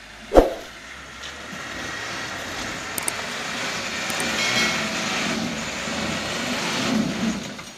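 Mitsubishi Canter diesel truck engine working hard under load as it claws forward through soft, wet sand and belches black smoke. The engine builds up over a couple of seconds, holds, and drops away near the end. A single sharp knock about half a second in is the loudest sound.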